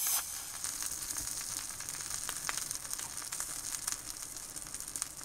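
Sizzling sound effect: a steady hiss with a few faint crackles scattered through it.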